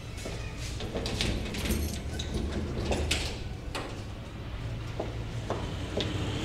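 Sheet-metal door being unlocked and pulled open: a string of sharp clicks and metallic knocks from the lock and the door.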